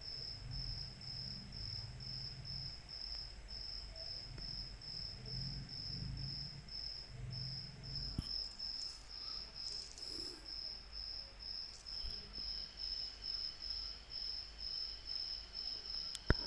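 A cricket chirping steadily and faintly, about two or three even high chirps a second, over a low hum. There is one sharp click near the end.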